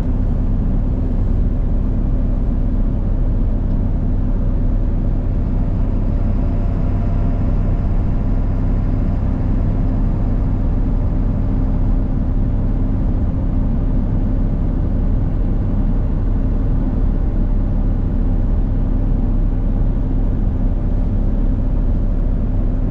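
A road vehicle driving at a steady speed: an even engine hum and road rumble with no change in pace.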